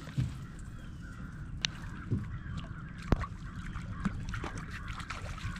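Outdoor river ambience: a steady low rumble with faint bird calls over it, and a couple of sharp clicks about one and a half and three seconds in.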